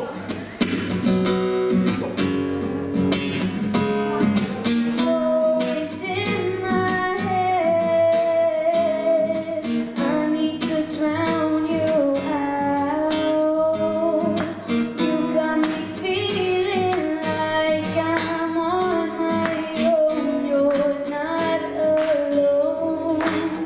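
Acoustic guitar strummed under a singing voice carrying a held, slowly moving melody: an acoustic song performance.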